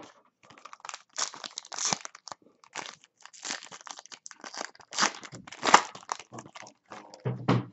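Trading-card pack wrapper being torn open and crinkled, a run of irregular crackles and tearing sounds.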